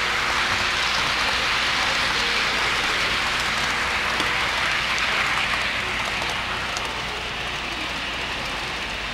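HO scale model freight cars rolling past close by, their metal wheels on the rails making a steady rushing hiss that eases a little over the last few seconds.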